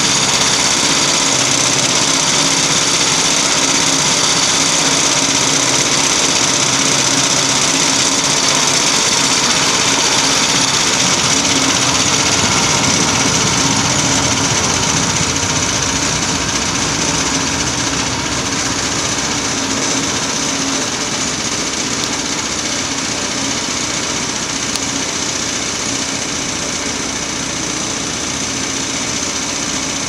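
Small gasoline engine of a Logmaster LM1 portable bandsaw mill running steadily at speed as the saw head travels along a log sawing boards, with a high whine from the band blade; it grows slightly fainter from about halfway as the head moves away.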